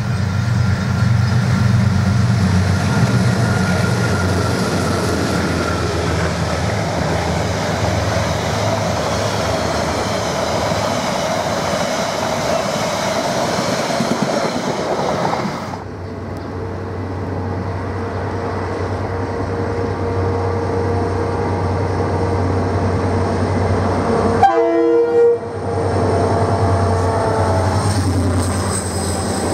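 KiwiRail diesel-electric locomotives hauling a freight train past at close range, engines running and wagons rolling by. About halfway through, the sound cuts to a second freight train, led by a DFT and a DC class locomotive, running steadily towards the listener.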